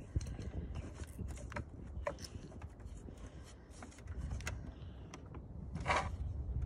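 Light clicks, ticks and rubbing from plastic ignition coil packs and gloved hands working over the engine's coil rail, with a short rasping scrape about six seconds in.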